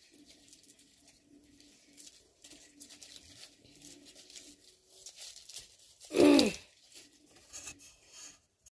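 Faint tearing and crinkling as sprouted green onion stalks are peeled and stripped by hand. About six seconds in comes one brief, louder sound that falls in pitch.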